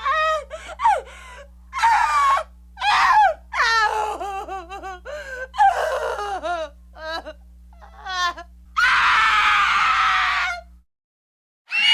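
A run of short, high-pitched screams and yelps whose pitch swoops up and down, then a longer, rougher scream about nine seconds in that cuts off into a brief silence, with a low electrical hum under them.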